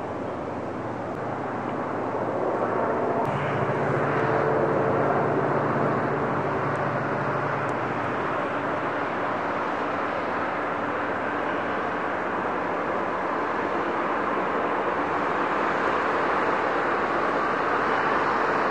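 EMD diesel locomotive working a train, a steady engine drone with a low hum whose pitch shifts a few seconds in; it grows slightly louder toward the end.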